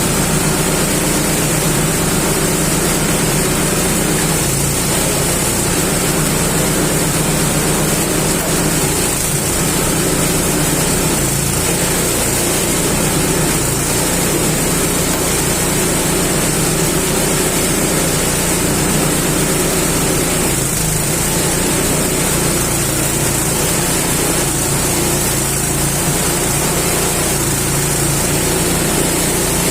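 Engine-driven coconut dehusking machine running steadily at a constant speed.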